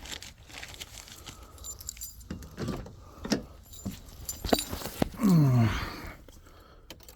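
Car keys jangling, with scattered clicks and knocks as someone gets into the car. About five seconds in comes the loudest sound, a short one that falls in pitch.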